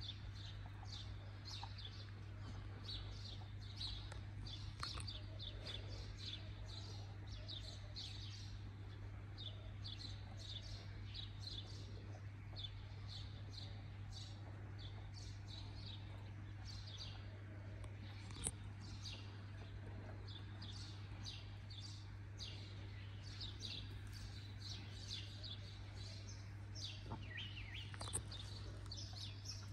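Small birds chirping in quick, short, high calls all through, over a faint steady low hum. One sharp click about eighteen seconds in.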